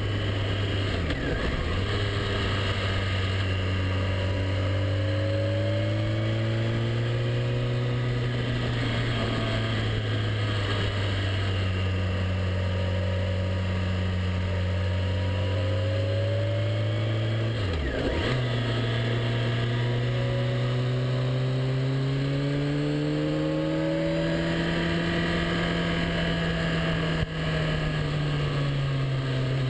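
Motorcycle engine running on the move, its note rising and falling with the throttle through the bends, over steady wind noise. The engine note dips briefly about a second in and again about eighteen seconds in, and there is a single sharp click near the end.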